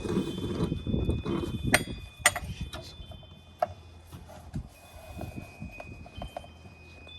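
Rustling handling noise, then a few sharp clicks and knocks as a strap is fitted around a wooden native bee hive box. Two faint steady high tones run underneath.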